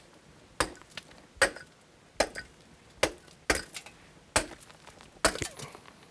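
Hand pick striking a coal seam seven times in a fairly even rhythm, one sharp chinking blow a little under every second, chipping coal from the face.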